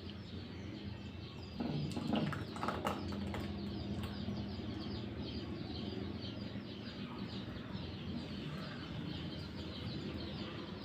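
Small birds chirping over and over in the background, over a steady low hum, with a few louder calls about two seconds in.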